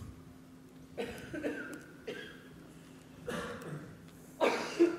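A man coughing and clearing his throat, four short bursts with the loudest near the end.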